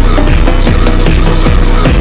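Electronic dance music with a steady beat and deep bass hits that drop in pitch.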